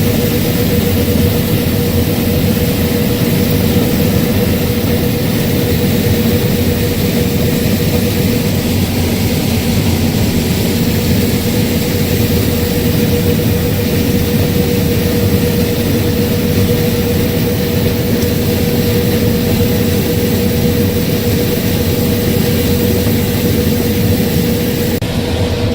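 Case IH 6140 combine running steadily while harvesting corn: a loud, even machine drone with a constant tone held throughout.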